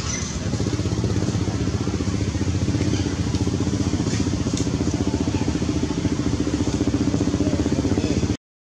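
A nearby engine idling steadily with a fast, even pulse; the sound cuts out abruptly near the end.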